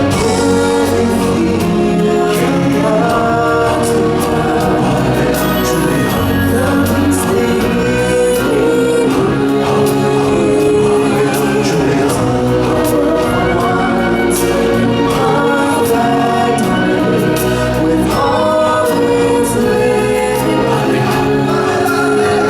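Loud, steady music with a choir of voices singing over it.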